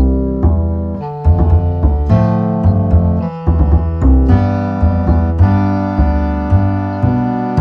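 Background music led by piano-like keyboard notes, struck at a steady pace over a bass line.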